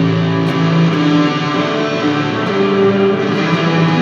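Electric guitar played through a fuzz pedal with its tone turned down for a thicker sound: held notes and chords that ring out and change every second or so.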